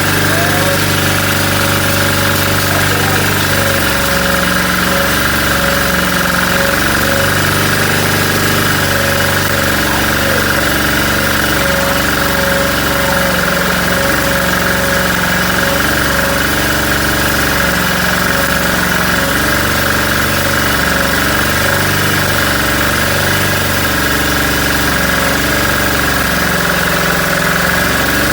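An engine running steadily at about the same loudness throughout, its low tones shifting every second or two.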